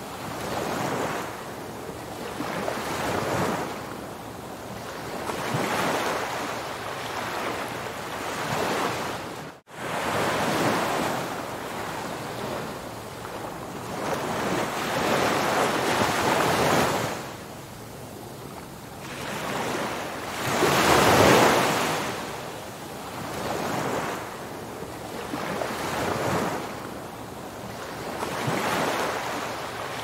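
Ocean waves washing in and drawing back, a rushing surge every few seconds with the largest about two-thirds of the way through. A momentary cut in the sound just under ten seconds in.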